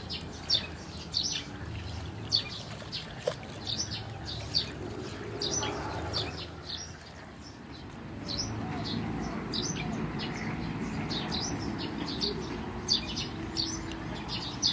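Small birds chirping in short high notes, several a second throughout, over a low steady rumble.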